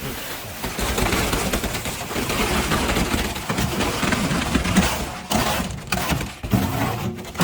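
Concrete mixer truck discharging its load: a loud, dense rushing and rattling of concrete down the chute over the running engine, cutting off sharply at the end.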